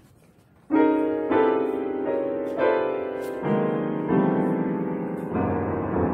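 Freshly tuned and repaired mini grand piano being played: after a short pause, a slow run of chords, each struck and left ringing for about a second before the next.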